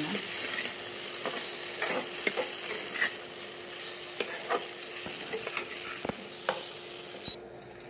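Metal spatula stirring poha in a metal kadai over a steady frying sizzle, knocking and scraping against the pan about ten times at uneven intervals. A faint steady hum runs underneath, and the sizzle cuts off near the end.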